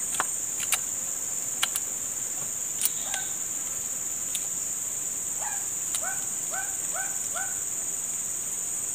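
A steady high-pitched drone of insects fills the background, with a few sharp clicks in the first three seconds. About five and a half seconds in, a bird gives a quick run of four or five short arched notes.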